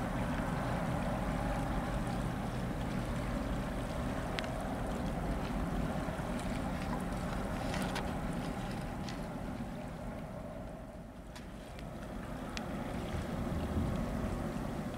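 Low steady rumble of a cargo ship and the tug alongside it, with a faint engine hum, mixed with wind on the microphone. A few faint clicks sound over it, and it eases off slightly about two-thirds of the way through.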